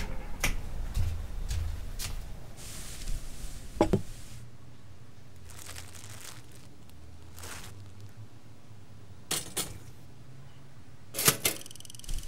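Cartoon sound effects: a sparse series of soft clicks and knocks over a quiet room tone. There is a short hiss a little before the loudest knock, which comes about four seconds in, and a few paired clicks near the end.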